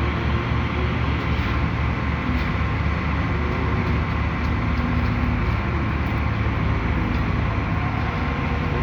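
Heavy diesel engine of a concrete truck running steadily with a low, even hum.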